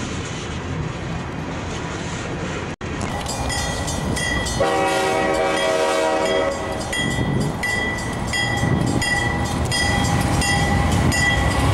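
A freight train of tank cars rolling past with a steady rumble. After a cut, an approaching locomotive sounds a chord horn for about two seconds, while a bell rings steadily about every half second over the rumble of the train.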